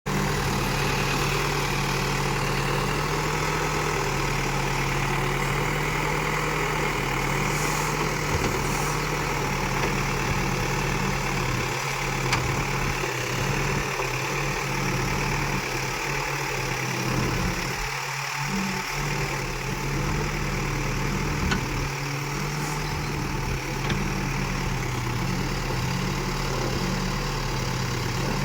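Diesel engine of heavy earth-moving machinery running steadily at a low, even speed, a constant low hum.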